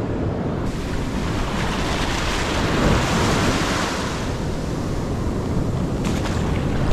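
Ocean surf washing in over the sand: a wave's foamy wash swells to its loudest around three seconds in and then eases off as it spreads out.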